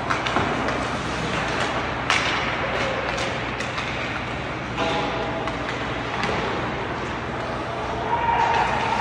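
Ice hockey game in an arena: a steady murmur of voices, with a few sharp knocks of sticks and puck.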